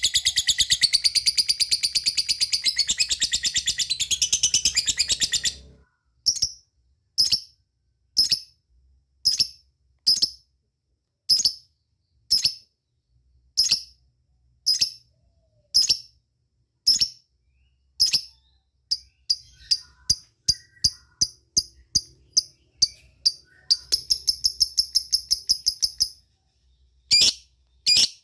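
Lovebird calling: a rapid, unbroken chattering trill (the 'ngekek') for about the first five and a half seconds, then sharp single chirps about one a second. Later the chirps quicken into a fast ticking run, followed by another short burst of chatter near the end.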